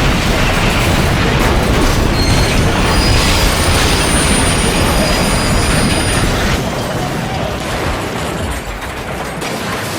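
Train crash sound effect: a loud, dense crashing noise with thin metallic squeals about three to six seconds in, easing off after about six and a half seconds.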